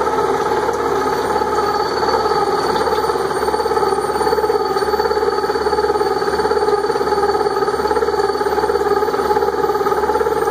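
Barber-Colman gear hobbing machine running, its hob cutter turning and feeding into a gear blank to cut the teeth: a loud, steady mechanical whir with a fast, even rhythm.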